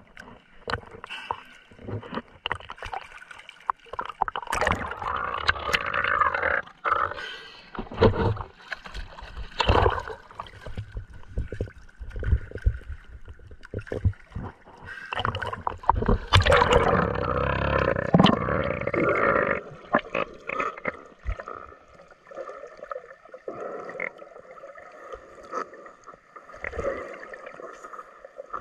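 Sea water sloshing and splashing around a camera in a waterproof underwater case bobbing at the surface of choppy sea, muffled by the case, with gurgling as it dips under. The splashing comes in two louder spells, the first starting about four seconds in and the second around the middle.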